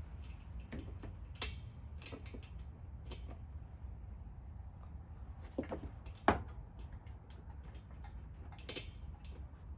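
Hand tools and a screw clicking and knocking against the metal compressor head while it is being reassembled: scattered short clicks, with a sharper knock about six seconds in, over a steady low hum.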